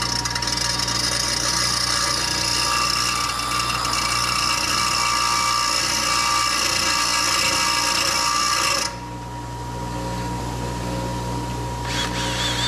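Bench grinder running while a steel part for a brake master cylinder is held against the wheel and ground down: a steady, high grinding rasp over the motor's hum. The grinding stops suddenly about nine seconds in, leaving the grinder motor running on, with a brief scrape near the end.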